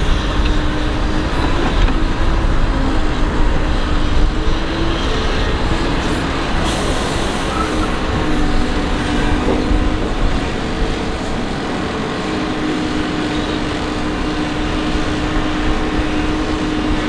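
Doosan DX225LC excavator's diesel engine running steadily under load, with its hydraulics working as it digs and swings. It is a continuous engine hum, a little quieter in the second half.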